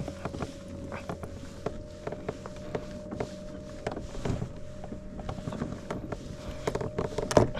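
A boat motor running with a steady hum, under a string of irregular clicks and knocks from fishing gear being handled. The loudest knocks come near the end.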